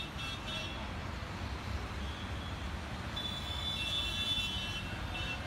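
Quiet street ambience: a low steady rumble of distant traffic, with faint high-pitched tones that come and go near the start and again a little past halfway.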